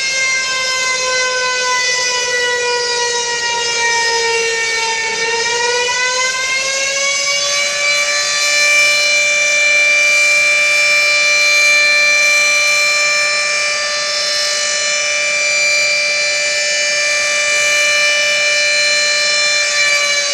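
Fire siren sounding one long, loud note. Its pitch sags slowly over the first few seconds, rises again about six seconds in, then holds steady.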